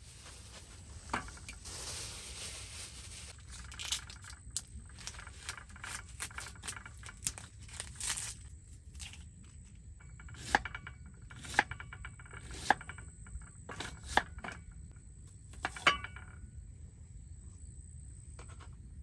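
Irregular clicks and knocks, with several sharper ones about a second apart in the second half, over a steady low rumble and a thin, steady high-pitched tone.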